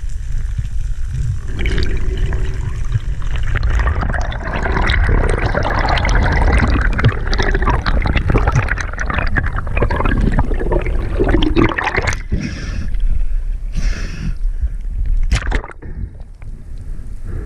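Sea water sloshing and bubbling around an underwater action camera, with a steady low rumble and many small clicks. A few short splashy bursts come near the end.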